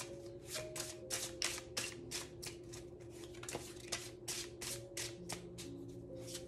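A tarot deck being shuffled overhand in the hands: a steady run of short riffling, slapping strokes as packets of cards slide off the deck, about three a second.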